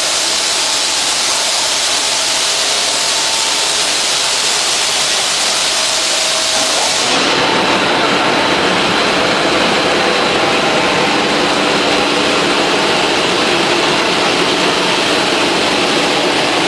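Machinery of a PVC foam board extrusion line running: a loud, steady hiss with a faint high whine. About seven seconds in the highest part of the hiss drops away, and a low steady hum joins a few seconds later.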